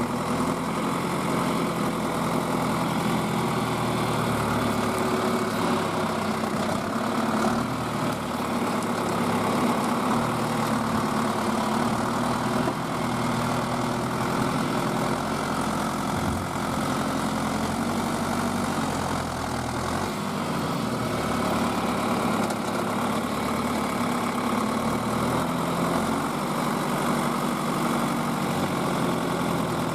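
Tractor engine running steadily, its low note shifting a little as the load changes around the middle.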